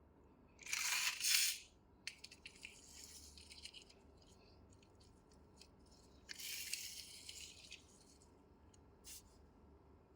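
Small plastic toy cars being handled: rattling and clicking, with two louder hissy rushes, one about a second in and another past the middle.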